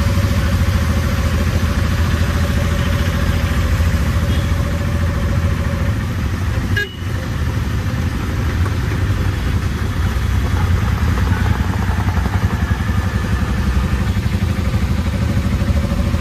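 Auto-rickshaw's small engine running steadily under way, heard from inside the open cabin, with a steady hiss of rain and tyres on the wet road. The sound dips briefly about seven seconds in.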